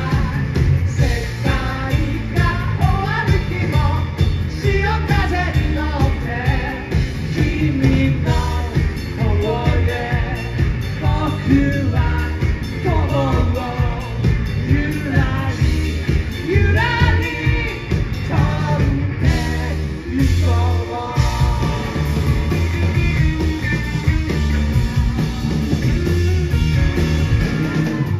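Live rock band playing: electric guitar, electric bass and drums, with a man singing lead.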